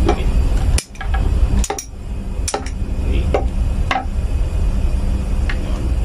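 A steady low machinery hum, with a few sharp metallic clicks and taps as steel wire rope and tools are handled against a metal stool.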